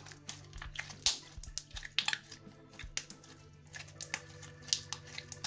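Slime being squeezed and kneaded in the hands, giving an uneven run of sharp little pops and clicks, over steady background music.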